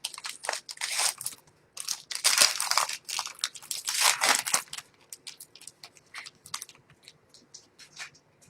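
A foil trading-card pack wrapper being torn open and crinkled in the hands, a dense crackling for about five seconds, then thinning to fainter scattered ticks and rustles.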